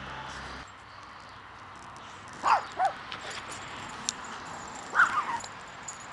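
Pekingese puppies yipping in play: two short, high yips falling in pitch about two and a half seconds in, then another small cluster of yips a couple of seconds later.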